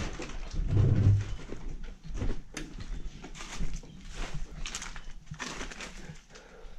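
Irregular crunching, scraping and knocking of footsteps and movement over rubble and debris, with a stronger low thump about a second in.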